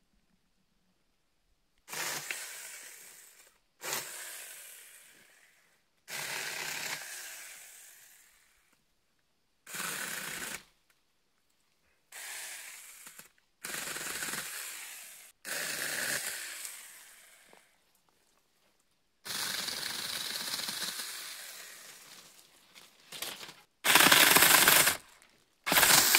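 Saker mini 20 V cordless electric chainsaw running in a series of short bursts as it cuts through branches: each burst starts suddenly and dies away over a second or two, the loudest two near the end.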